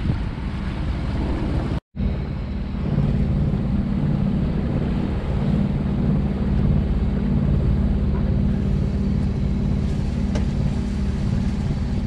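Wind and water rushing past the boat, then, after a brief dropout about two seconds in, the steady low drone of a Mariner outboard motor pushing the sailboat along.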